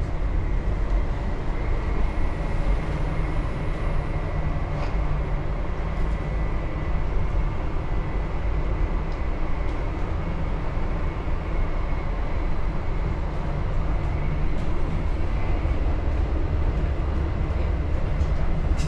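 Steady cabin noise inside a 500 Series Shinkansen car: a continuous low rumble of the running train, with a faint steady high tone.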